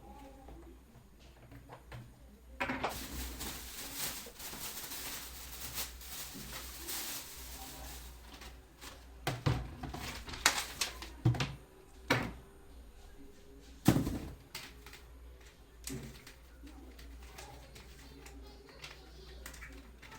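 Plastic fan parts being handled and fitted together during assembly: a few seconds of rustling hiss, then a run of knocks and clicks, the loudest about fourteen seconds in.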